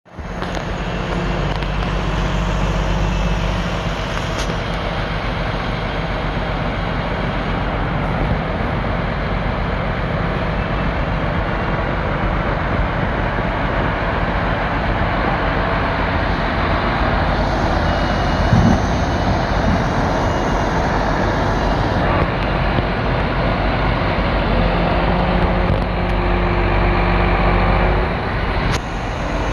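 Diesel engine of a crane truck running steadily, with a brief rise about two-thirds of the way through.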